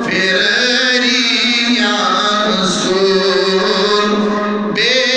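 A man's solo voice chanting a Kashmiri naat, a devotional poem in praise of the Prophet, in long melodic phrases with held, wavering notes. A new phrase starts near the end.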